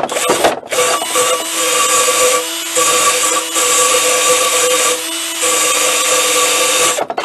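Electric starter motor of a Znen 50cc four-stroke scooter cranking the engine with the spark plug out, to test for spark. A steady whirring whine comes in three runs of about two seconds each, after a short rattle at the start.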